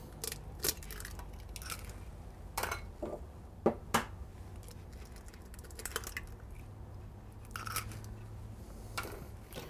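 Two whole eggs being cracked and their shells broken open over a food processor bowl: faint, scattered taps and cracks at irregular intervals.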